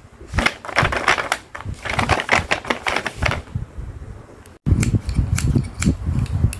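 Fingernails tapping and hands rubbing over a sheet of printed paper on a wooden table: a quick run of clicks and crinkling paper rustles. After a sudden break about two-thirds through, heavier close handling with low thumps and clicks as a pair of scissors is picked up.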